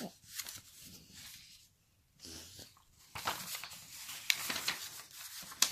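Soft paper rustling as a small child handles and turns the pages of a picture book, with a run of short crackles and taps in the second half.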